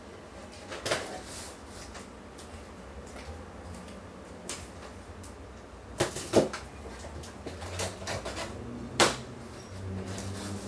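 Large cardboard TV box being worked open: scattered knocks, scrapes and clacks against the cardboard, the sharpest about six seconds in and again about nine seconds in.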